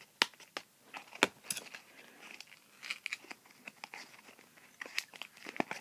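Toy packaging being worked open by hand: crinkling and tearing with several sharp clicks and snaps.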